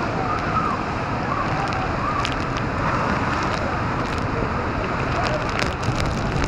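Storm-surge water churning and breaking in hurricane winds, with wind buffeting the microphone: a steady, dense rush of noise.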